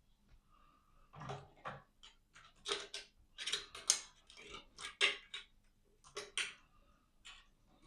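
Small metal tools and screwdriver bits clinking and rattling in irregular bursts as they are handled and sorted through.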